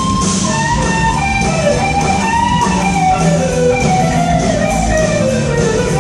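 Live instrumental rock-jazz band: an electric guitar lead line with bends, winding downward in pitch over the second half, over bass guitar and drums.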